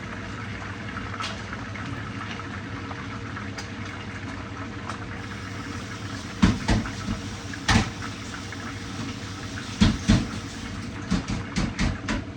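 Fish frying in hot oil in a pan, a steady sizzle. From about halfway in, several sharp clicks and knocks cut through, loudest at two pairs of strikes.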